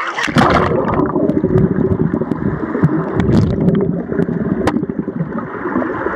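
Splash as a waterproof camera plunges into pool water, then the muffled, bubbling rumble of water heard from below the surface, with a few sharp clicks. Bubbles rise past a swimmer's face.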